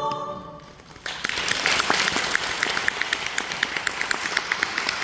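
A choir's held final chord fades out, and about a second in an audience starts applauding, a steady dense clapping that goes on.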